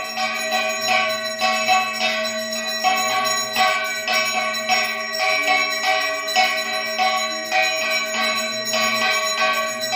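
Background music of bells struck about twice a second over a steady drone.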